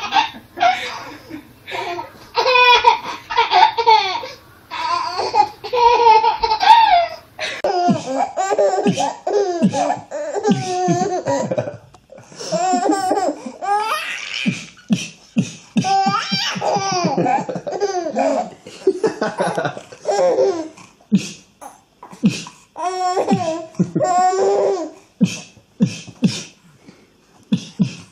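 Hearty laughter in repeated bouts: first a woman laughing hard, then, about seven seconds in, a baby laughing in short bursts with a man.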